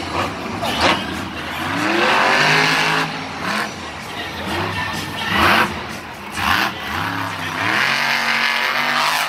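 Monster truck engines being revved hard, the pitch sweeping up and down again and again as the throttle is blipped, with a few sharp cracks among them.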